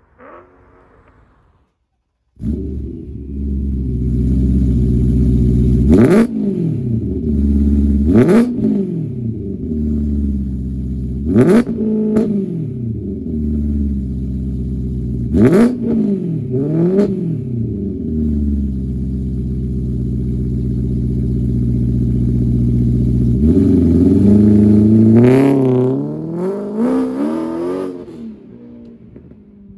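Straight-piped BMW E92 M3 V8 idling, then revved in a series of sharp blips, each with a loud crack at its peak. It then holds a steady note and pulls away hard about 24 s in, the pitch rising and dropping through gear changes before fading as the car goes off.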